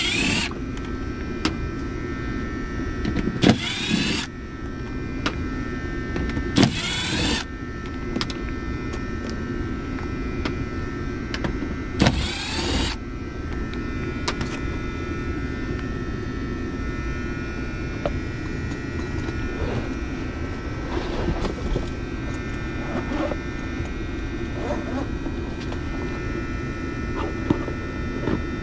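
A cordless drill spins up in three short runs on the screws of a Trane air handler's access panel, each with a rising whine. Under them is the steady electrical hum of the running unit, with a contactor buzzing inside it.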